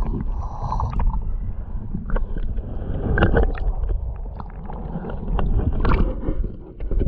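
Shallow river water sloshing and gurgling around a submerged camera, heard muffled through the water as a low rumble with many small clicks and knocks.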